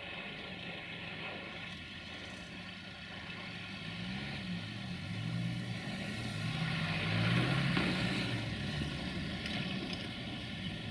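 Caravelle X4500 diesel railcar's engine running as it approaches, growing louder toward the middle, with its low engine note shifting in pitch several times before settling again near the end.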